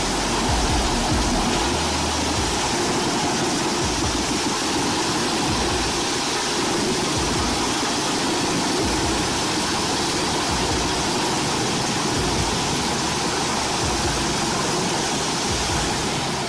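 Heavy forestry machinery running: a steady, dense roar with no clear pitch or rhythm.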